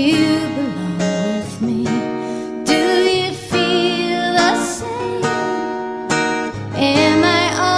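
A woman singing a slow song with vibrato on held notes over a strummed acoustic guitar.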